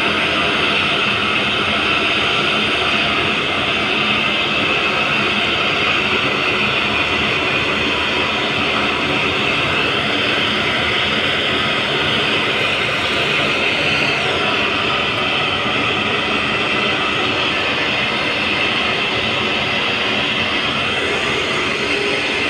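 Steady machinery noise that does not change, loudest in the middle and upper range, with faint steady tones in it.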